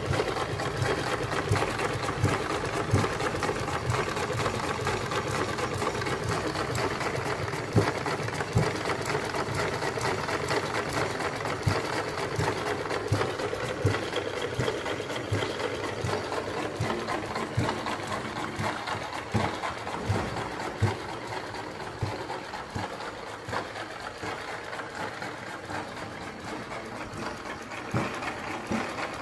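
Homemade single-cylinder spark-ignition mini engine, its cylinder made from a jeep wheel cylinder, running steadily with a fast, even mechanical clatter of valve gear and firing strokes.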